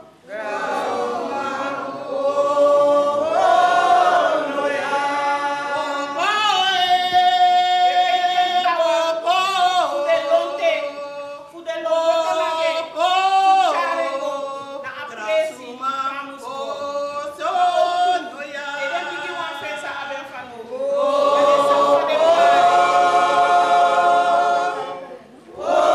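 A group of women singing a cappella, in sung phrases with short breaks between them. The singing pauses briefly near the end, then resumes.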